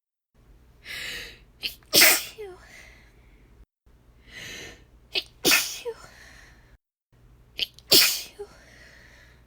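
A woman sneezing three times, each sneeze shaped as a "heh'chew": a breathy "heh" intake, then a loud explosive "chew" with a short voiced tail. The three sneezes are separated by brief dead-silent gaps.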